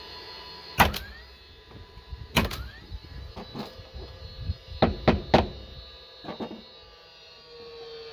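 DeWalt cordless nail gun firing nails into cement siding: about six sharp shots, irregularly spaced, three of them in quick succession about halfway through. A short rising motor whine follows the first shots.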